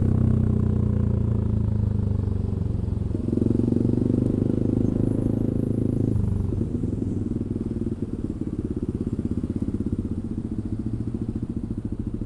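Yamaha Aerox 155 scooter's single-cylinder four-stroke engine running through a DSM Cobra aftermarket racing exhaust with a 38 mm inlet, easing off from a rev, blipped up briefly about three seconds in, then settling to a steady idle with an even pulsing beat.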